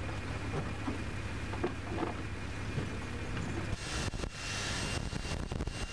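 A steady low hum with faint scattered sounds, then, nearly four seconds in, a cordless drill running on a helicopter's metal rocket pod, a high whine with a steady tone.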